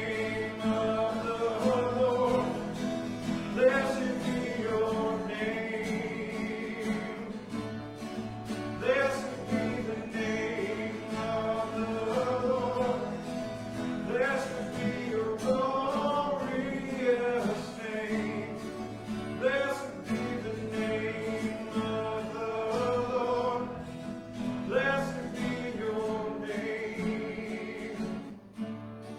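Worship song sung by a group of voices with guitar accompaniment.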